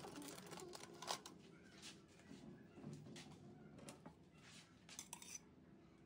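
Faint clinks and scrapes of a metal spatula against a stainless steel bowl as buttercream is scooped out and spread on a sponge cake: a few scattered short clicks.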